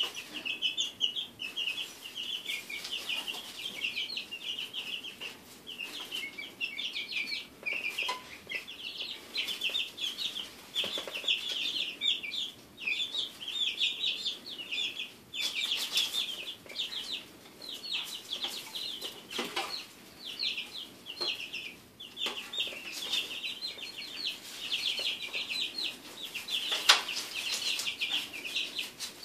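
A brooder full of three-week-old chicks peeping: rapid, overlapping high chirps that never stop. Soft rustles and clicks of chicks scratching and kicking in wood shavings are scattered through it, with one sharper tap near the end.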